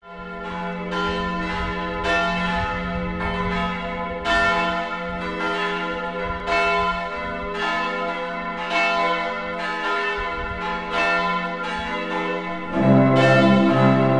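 Church bells ringing, strokes a little more than a second apart with each one ringing on. About 13 s in a deeper bell joins and the ringing grows louder.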